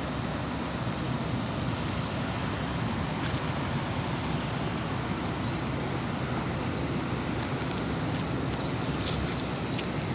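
Steady low rumble of a semi truck on the move: engine and road noise with some wind noise.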